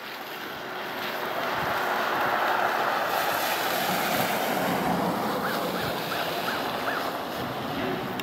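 Outdoor rushing noise that swells over the first two seconds, holds, then eases off near the end, with five short, evenly spaced chirps in a row a little past the middle.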